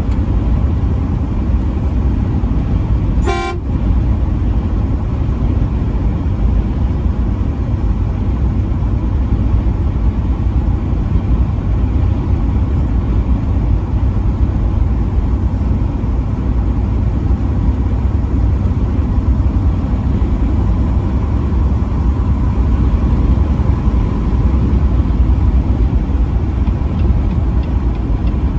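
Steady engine and road rumble of a vehicle driving at highway speed, with one short horn toot about three seconds in.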